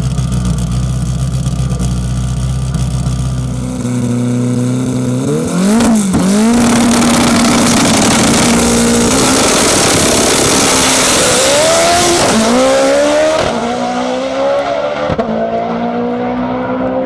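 Stick-shift drag car's engine idling at the start line, then revved up and held steady before launching hard down the track. Its pitch climbs and drops back at each manual gear shift as the sound fades into the distance near the end.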